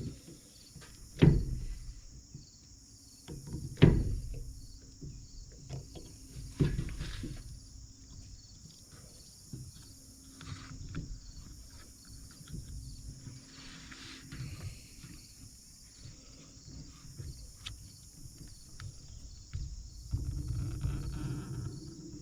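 Steady high insect chorus, swelling and fading about once a second, with three heavy knocks of handling in the first seven seconds and small clicks and rubbing sounds.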